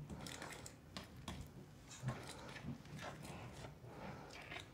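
Faint scraping and light tapping of a fork against a glass mixing bowl as flour is stirred into cookie dough by hand, with scattered soft clicks.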